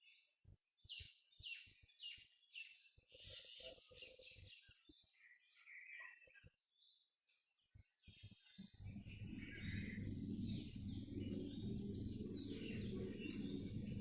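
Small birds chirping and twittering in quick, high-pitched calls. About two-thirds of the way through, a steady low rumble sets in and becomes the loudest sound, with the birds still calling above it.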